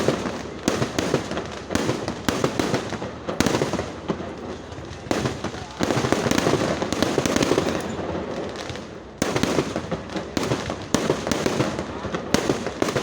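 Fireworks display going off: rapid, irregular bangs and crackles, several a second. The shots pack into a dense, continuous barrage for a few seconds in the middle, and a sharp loud bang sets off a new run shortly after.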